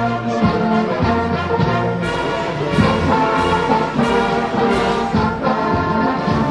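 Music led by brass instruments, held notes changing every second or so.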